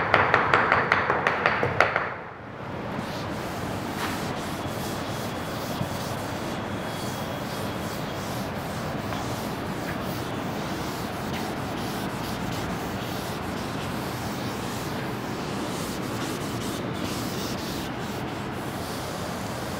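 Board eraser rubbing back and forth in quick strokes for about two seconds, then a steady hiss.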